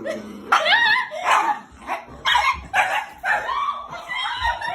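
Dog barking and yipping: a string of high-pitched barks starting about half a second in.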